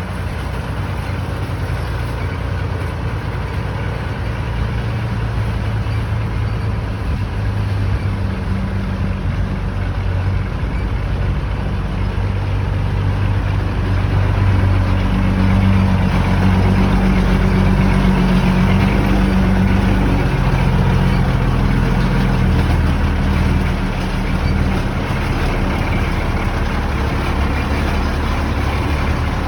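Unimog 416's diesel engine running under load as it pushes a heavy truck. The engine note rises and falls, and it is louder and higher for several seconds around the middle.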